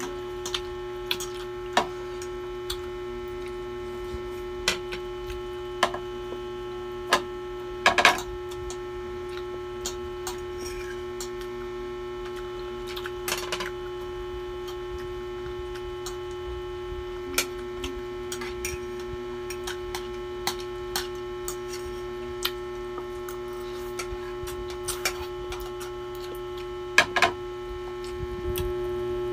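Forks and spoons clicking and scraping on plates as people eat noodles: scattered sharp clicks, with louder clatters about eight seconds in and near the end, over a steady electrical hum.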